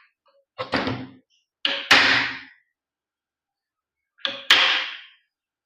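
Three sets of hammer blows on the reassembled cooler exhaust motor, each a quick double knock with a short metallic ring, about a second in, near two seconds and past four seconds. The blows settle the new bearing and end cap so the shaft turns freely.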